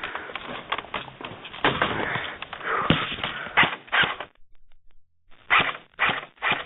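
Heavy breathing and panting close to a mask-mounted microphone: rough, noisy breaths running together at first, then a pause of about a second, then quick separate breaths about two a second.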